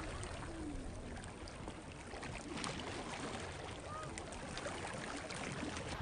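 Small waves lapping against shoreline rocks: a steady wash of water with many small splashes and ticks.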